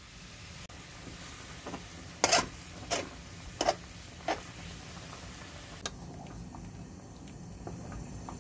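Instant ramen noodles boiling in a pan of water, with a steady bubbling. Four sharp clacks come about two to four and a half seconds in, as chopsticks break up and stir the noodle block against the pan.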